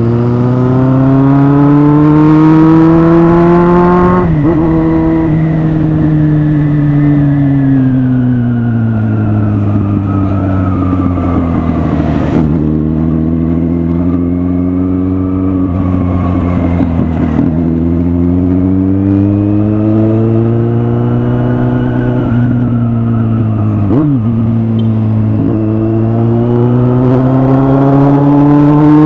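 Kawasaki Z800's inline-four engine under way. Its pitch climbs, drops sharply on a gear change about four seconds in, then eases off and swells up and down. There is another quick dip about 24 seconds in before it climbs again toward the end.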